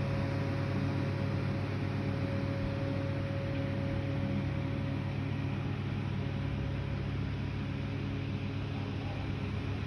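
Steady low mechanical hum over an even background noise, with a faint higher tone that fades out about halfway through.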